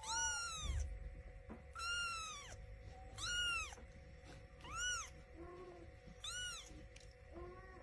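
A young kitten meowing: five high-pitched mews, each rising and then falling in pitch, about one every second and a half, with a couple of fainter short calls between them.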